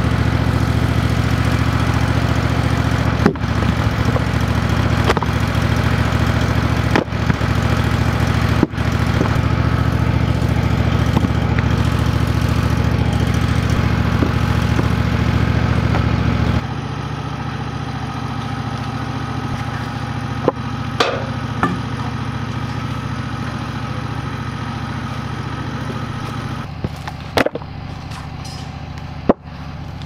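Engine of a Wood-Mizer portable sawmill running steadily. A little past halfway it suddenly turns quieter and duller, and a few sharp knocks come near the end.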